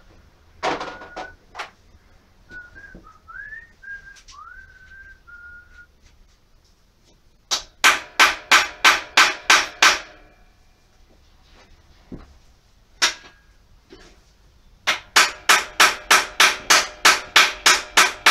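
A person whistles a few short notes. Then come two quick runs of hammer blows on metal, each blow ringing, at about four or five a second: about ten blows, then a single blow, then about fourteen more near the end. The blows are likely struck on a stuck bolt during engine removal.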